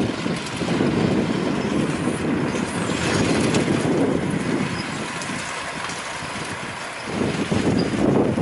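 John Deere 6145R tractor's six-cylinder diesel running under load as it pulls a KUHN rotary hay rake through cut grass. The sound dips for a couple of seconds past the middle, then grows louder again near the end.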